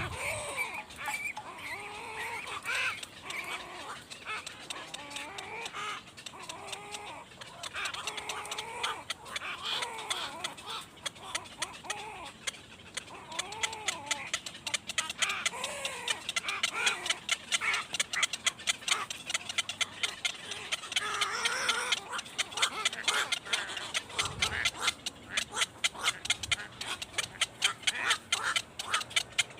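Birds calling over and over, short calls that rise and fall in pitch. From about halfway through they are joined by a rapid run of sharp clicks or taps.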